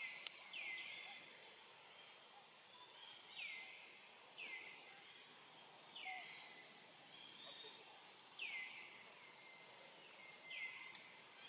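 A bird calling repeatedly, faint: short downward-sliding notes, six in all, spaced one to two and a half seconds apart, over a faint outdoor hiss.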